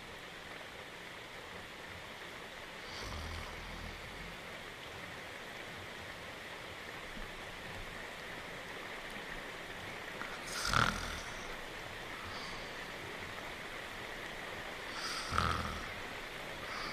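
Steady rain with a cartoon dog snoring over it: a faint snore about three seconds in, then two louder snores about four and a half seconds apart in the second half.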